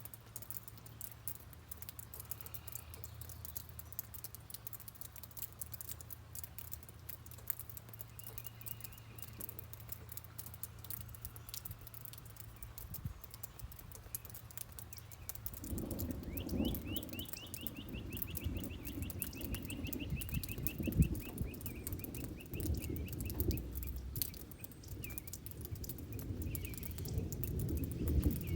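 Steady rain pattering with a few birds chirping, one giving a quick trill about halfway through. A low rumble of distant thunder comes in about halfway and builds.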